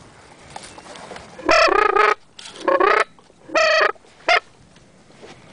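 Duck call blown by a hunter: a series of loud, nasal quacks, the last one short.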